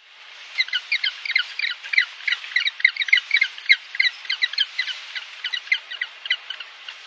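Penguins calling: a rapid series of short, high calls, several a second, over a steady hiss.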